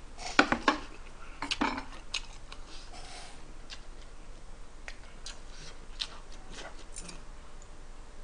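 Metal spoon and chopsticks clinking against bowls and a serving board during eating. A few sharp clinks come in the first two seconds, the loudest about half a second in, followed by scattered light clicks.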